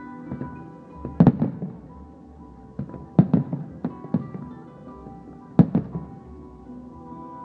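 Aerial firework shells bursting in sharp loud bangs, coming in three bunches about a second, three seconds and five and a half seconds in, over steady music.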